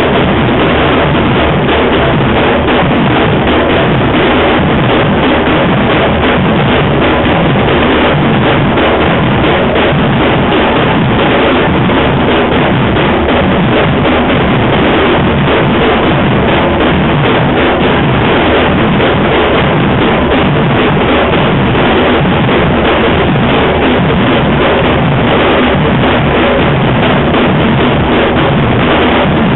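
Afro-Brazilian percussion band playing a loud, dense, unbroken drum rhythm.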